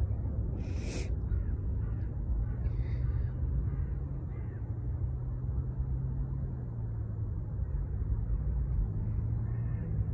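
Four-stroke dirt bike engine running far off, a steady low hum over wind rumble on the microphone. A short harsh sound cuts in about half a second in.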